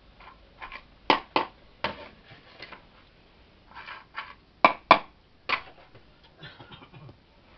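An irregular series of sharp knocks and clicks, a dozen or so, the loudest coming in pairs about a second in and just before five seconds in.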